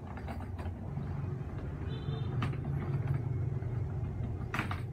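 The plastic latches of a DeWalt hard tool case click as they are unsnapped, with a few light clicks and one sharp snap near the end. A steady low rumble sounds underneath.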